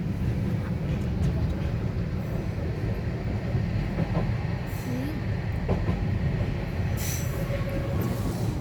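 Steady low rumble of a car-carrying shuttle train in motion, heard from inside a car loaded on one of its wagons, with a short burst of hiss about seven seconds in.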